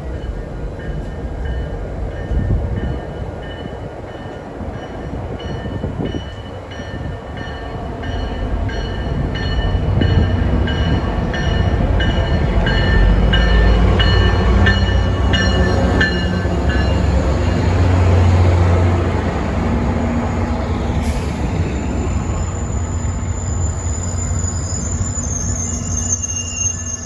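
MBTA commuter train led by an EMD GP40MC diesel locomotive rolling through the station. The locomotive's deep engine rumble builds to its loudest in the middle, and high thin wheel squeal rings over the later part.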